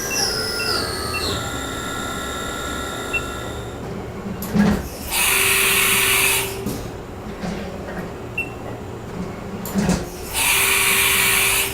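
Haas VF-1 spindle whine stepping down in pitch as the spindle slows from 10,000 RPM, fading within a few seconds. Later come two hissing mechanical bursts of about a second and a half each, each with a low hum and a click just before it.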